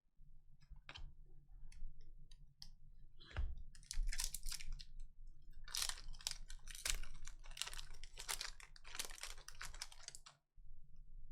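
Trading cards being handled and flipped through by hand: a run of light clicks and papery rustles, busier in the second half.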